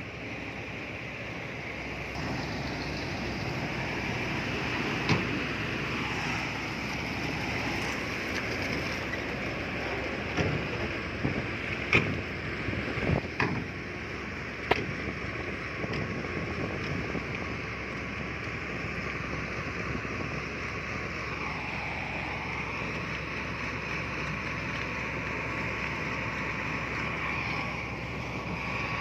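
Heavy diesel earthmoving machinery running steadily, with a handful of sharp knocks and clanks near the middle.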